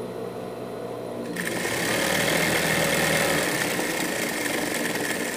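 Straight-stitch sewing machine stitching a seam: a low hum, then about a second in the machine starts sewing and runs steadily until it stops at the end.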